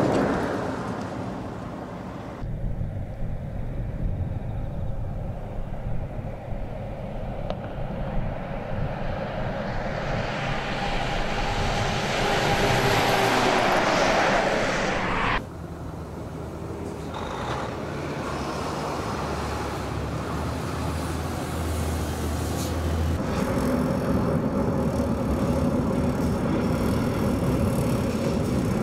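Volvo FH16 road train driving on the highway, its diesel engine and many tyres running. The noise builds to a loud pass about halfway through, then gives way to a steady engine drone, breaking off abruptly a few times.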